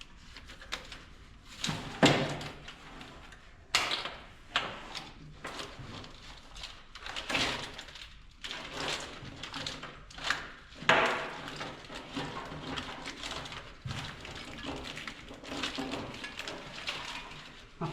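Irregular knocks, clicks and rustling of hands working a wiring harness and its plastic clips through an engine bay.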